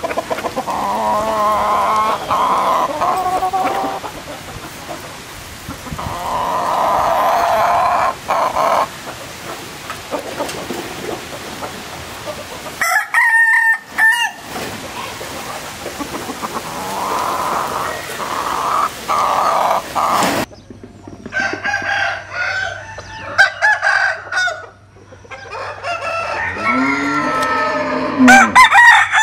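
Bantam roosters crowing: four long crows spread a few seconds apart, with clucking and short calls between them in the last third.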